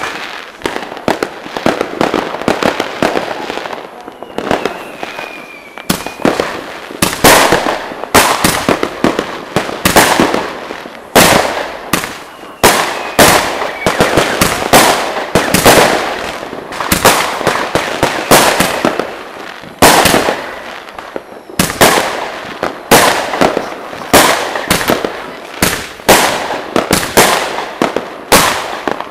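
Fireworks going off: dense crackling for the first several seconds, then a long run of sharp bangs, about one to two a second, each trailed by a short crackle. A faint falling whistle sounds now and then.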